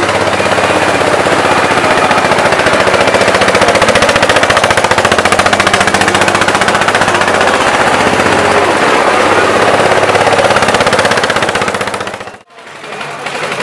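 Small vintage tractor engine running hard under load, its exhaust a loud rapid even popping. It breaks off suddenly near the end, and another tractor engine's popping exhaust takes over.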